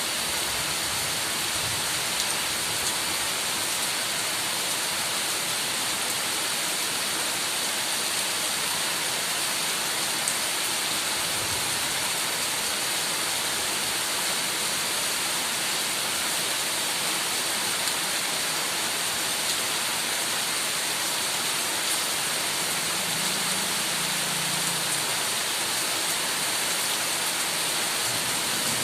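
Heavy rain falling steadily, a dense even hiss of many drops with no letup.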